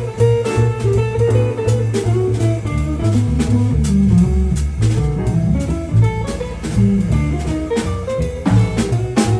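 Live jazz instrumental passage: a plucked double bass carries a moving low line under drum kit playing with steady cymbal strikes.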